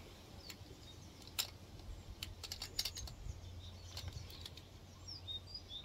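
Scattered light plastic clicks and taps from handling a Hornby Class 47 model locomotive, bunched about two to three seconds in and again around four seconds. Faint bird chirps near the end.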